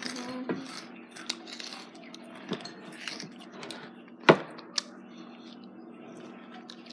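Hot Cheetos being crunched and chewed close to the microphone: scattered small crackles and clicks, with one sharp click about four seconds in.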